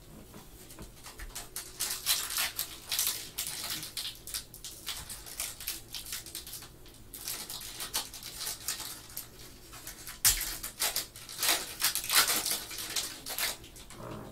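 Foil trading card pack wrapper crinkling and tearing as it is opened and handled in gloved hands, in irregular rustling bursts that are loudest about two to four seconds in and again from about ten to thirteen seconds in.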